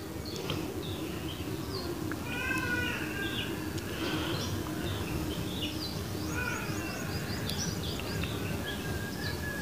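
Birds calling outdoors: many short chirps, with two bursts of harsher, arched calls about two and a half and six and a half seconds in, over a steady low background rumble.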